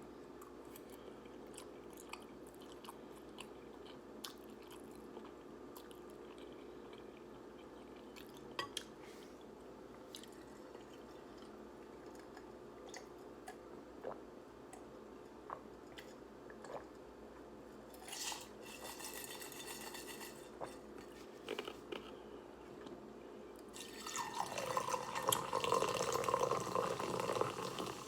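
Close-up mouth sounds of someone eating instant ramen noodles: soft, scattered chewing clicks and wet smacks. Near the end there is a louder, busier stretch of eating noise.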